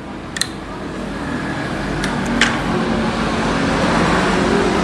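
A small fan or blower running steadily with a low hum, slowly growing louder, with two sharp clicks about half a second and two and a half seconds in.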